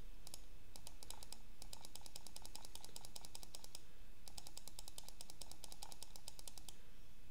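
A computer mouse button clicked rapidly over and over, in several long runs broken by short pauses.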